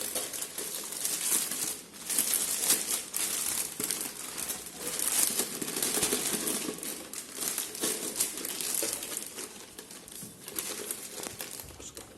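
Packaging wrap crinkling and rustling in irregular bursts as it is handled and pulled off a new pressure cooker.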